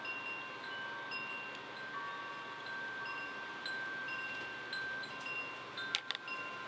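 Wind chimes ringing: several held, overlapping tones of different pitches sounding one after another over a faint background hiss, with a couple of sharp light clicks about six seconds in.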